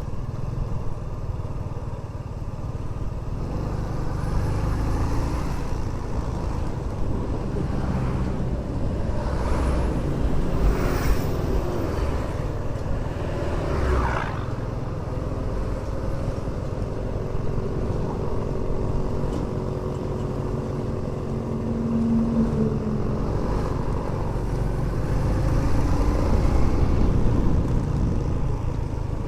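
Motorcycle running along the road, heard from the rider's position, with low wind and road rumble on the microphone. A few louder passing-vehicle swells come in the middle, and a steady engine hum shows later on.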